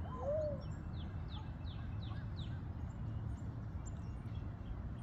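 A songbird singing a quick run of about seven short, high, downslurred notes, roughly four a second, over a steady low background noise.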